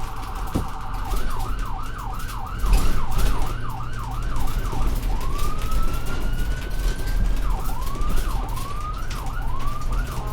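Ambulance's electronic siren cycling through its patterns: a rapid warble at first, then a fast yelp of quick falling sweeps about two and a half a second, one long slow rising wail around the middle, then the yelp again. A low rumble from the moving vehicle runs underneath.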